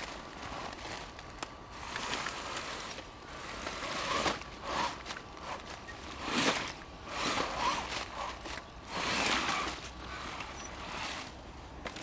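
Rustling of bramble leaves and brush with footsteps in the undergrowth, in irregular bursts that are loudest through the middle, over a faint steady whine from a 1:10 scale motor-on-axle RC rock crawler's electric motors as it drives through a muddy creek bed.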